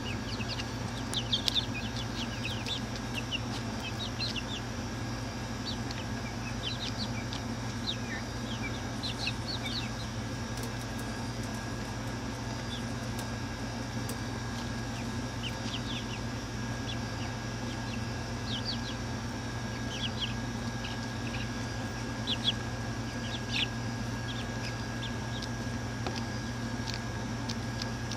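Young chicks peeping: short high cheeps in scattered clusters, many dropping in pitch, over a steady low hum. A few sharp taps stand out about a second and a half in and again near the end.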